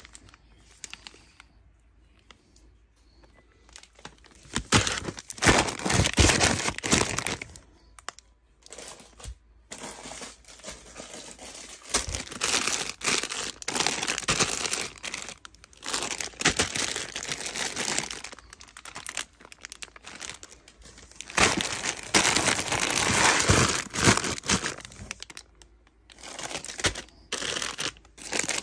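Plastic candy bags crinkling as they are picked up and handled, in irregular bursts with short lulls between.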